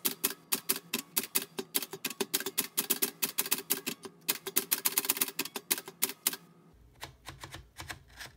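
Manual typewriter being typed on: quick key strikes, about five a second, each a sharp clack of a typebar hitting the paper. Near the end the strikes thin out to a few fainter ones over a low hum.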